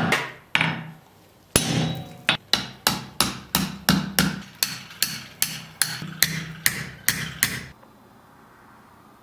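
Blacksmith's hand hammer striking red-hot iron on a steel anvil: one blow, a short pause, then a steady run of ringing blows about three a second that stops with about a second and a half left.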